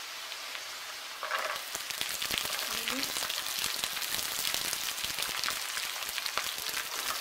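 Chopped onions sizzling in hot oil in a wok. The sizzle turns louder and crackly about a second in as chopped green beans go into the hot oil.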